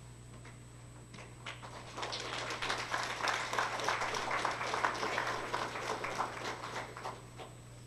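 Audience applauding: a few scattered claps about a second and a half in swell into steady applause, which dies away near the end.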